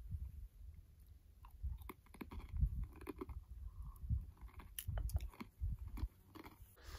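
Close chewing and biting of bahmmou nomad bread, with irregular soft crunches and small mouth clicks.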